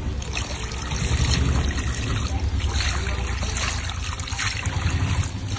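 Water being poured into a tub of muddy water, trickling and splashing onto a leaf laid on the surface. The leaf breaks the flow so the settled mud isn't stirred up.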